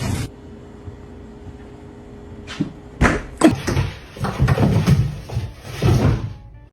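Quiet room tone, then a click and two sharp knocks, followed by a run of dull thumps and bumps.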